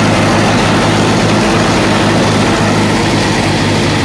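Allis-Chalmers tractor engine running steadily as the tractor drives along, with an even low drone.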